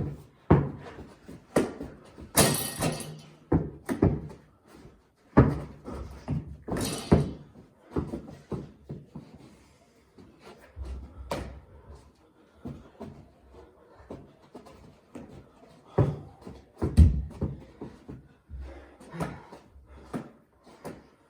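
Irregular thuds, bangs and knocks of a ball game played in a room: a ball striking the floor and hard surfaces, with scuffling between the hits.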